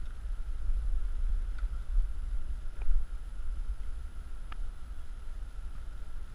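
Wind buffeting the microphone as a low, uneven rumble, with three faint ticks spread through it.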